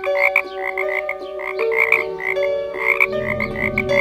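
Frog croaking sound effect: a rapid run of short croaks, several a second.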